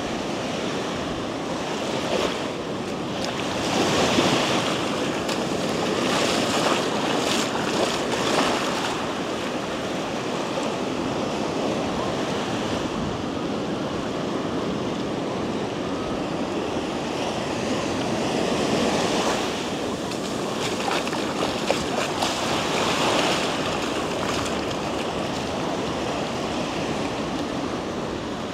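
Ocean surf breaking and washing up the sand, a steady rush that swells louder every several seconds as waves come in.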